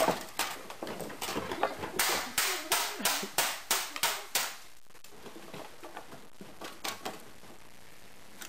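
Old electronics being smashed: a run of sharp knocks and clattering blows, about two or three a second, densest a couple of seconds in, then a few scattered knocks.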